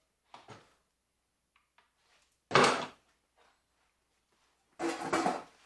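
Handling noise: a few light clicks, then a loud short knock about two and a half seconds in and a longer clatter near the end.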